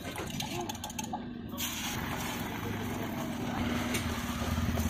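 Low hum of a motor vehicle engine growing louder toward the end, with a steady hiss that starts suddenly about a second and a half in.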